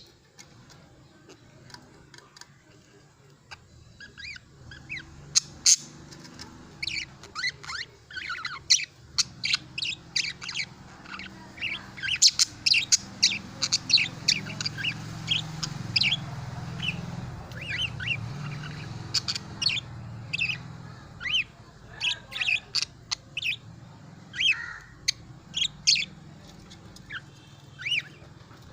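Pet budgerigars chirping and chattering: a stream of short, sharp high chirps, densest through the middle, over a low steady hum.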